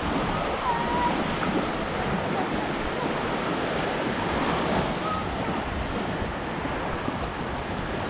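Small Black Sea waves breaking and washing up a sandy shore in a steady surf, with wind buffeting the microphone.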